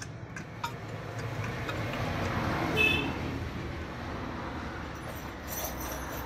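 Road traffic passing close by: a vehicle's engine noise swells to a peak about halfway through and then fades back, with a brief high-pitched squeak at its loudest, over a steady low hum.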